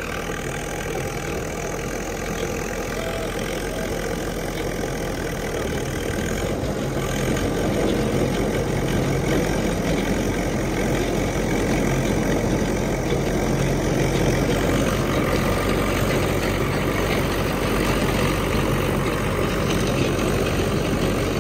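Tractor engine running under load as it drives a trenching machine through the ground in a big gear, a steady dense mechanical drone that grows a little louder about seven seconds in.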